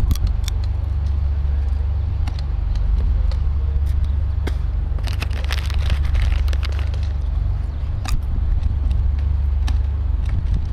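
Airsoft gas pistols and shotguns firing in sharp, scattered shots at irregular intervals, with a brief rushing noise about five seconds in, over a steady low hum.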